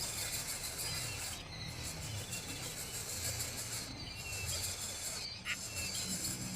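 Nature ambience of steady insect buzzing with short bird chirps repeating every couple of seconds, over a soft low music bed.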